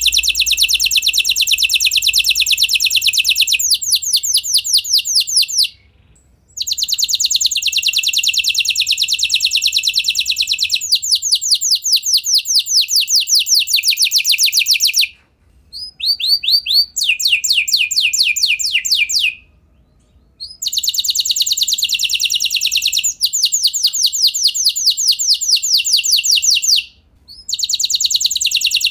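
A yellow F1 domestic canary singing: long, fast rolling trills of rapidly repeated high notes, broken by four short pauses.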